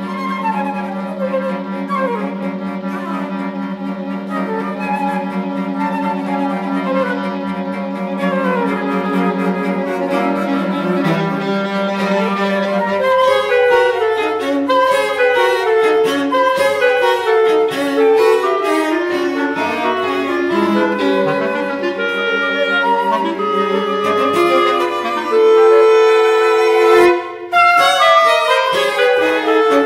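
Chamber quartet of flute, clarinet, violin and cello playing contemporary classical music. A held low note sounds under falling runs, then about twelve seconds in the whole ensemble breaks into a dense, fast passage, with a brief break near the end.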